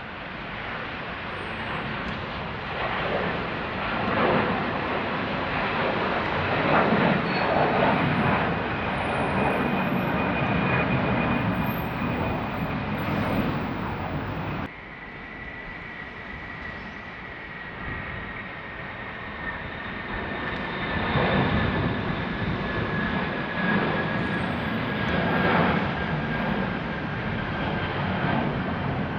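Jet engines of a large airliner at takeoff power, a loud rushing roar with a high whine, as it departs. About halfway through the sound cuts abruptly and another departing jet builds up again, its whine slowly falling in pitch.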